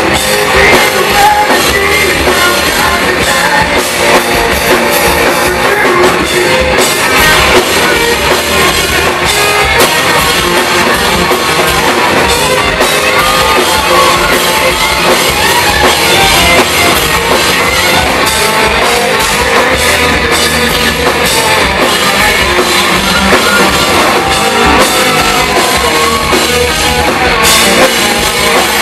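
Live rock band playing loud, with drum kit, distorted electric guitars and a lead vocalist singing, as heard from the crowd at a small club.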